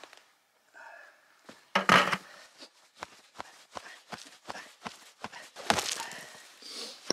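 A hammer striking rock: two heavy blows, about two seconds in and near six seconds, with a run of light clicks and taps in between, as the vein rock is broken out of the boulder.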